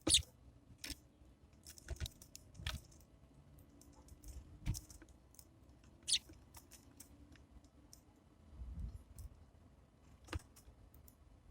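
Sparrows pecking seed and hopping about on a bird feeder: irregular sharp taps and clicks, with a few soft low thumps.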